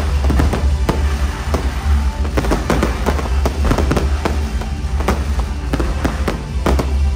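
Aerial fireworks going off in rapid succession, many sharp bangs and crackles, over loud music with a heavy bass line.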